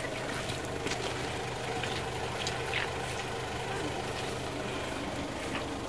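Mitsubishi L200 pickup's engine idling steadily, with a few faint clicks over it.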